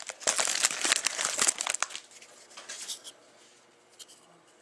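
Trading card pack wrapper crinkling and tearing as the pack is pulled open by hand, a quick run of rustles that dies down after about two seconds to a few faint rustles.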